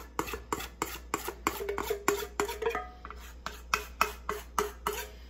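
Metal spoon scraping and clinking against a mixing bowl as cheese-bread batter is scraped out: a quick, uneven run of sharp clicks, about four a second, some with a short ringing note.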